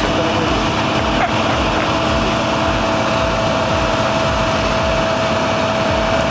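Heavy earth-moving machinery running steadily, with a diesel engine's rumble and a steady high whine over it.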